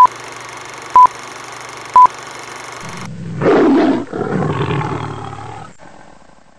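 Film-countdown leader sound: three short, loud, high beeps a second apart over a steady hiss. About three seconds in the hiss stops and a loud roar sound effect comes in, followed by a second, lower roar that fades out.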